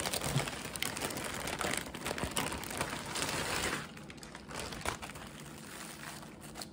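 Clear plastic bag crinkling and rustling as a long wig is pulled out of it. The crinkling is loudest for the first four seconds, then quieter with a few small clicks.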